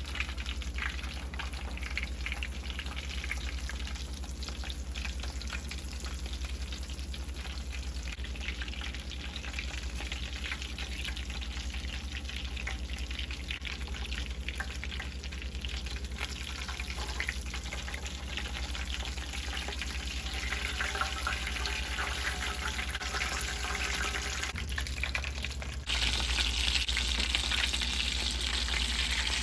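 Panko-breaded chicken katsu cutlets frying in hot oil: a steady crackling sizzle that turns suddenly louder near the end.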